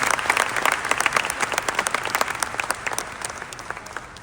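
Audience in a large hall applauding, dense clapping that thins out and fades towards the end.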